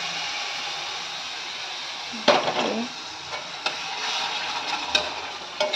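Hot milk poured into semolina roasted in ghee in a steel kadhai, sizzling. About two seconds in, a steel spatula starts stirring and scraping, with the loudest clank first and a few sharp knocks against the pan after.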